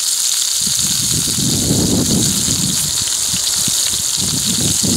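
Thick slab of wild hog bacon sizzling in an iron skillet, a steady hiss. A low, uneven rumble joins in about half a second in.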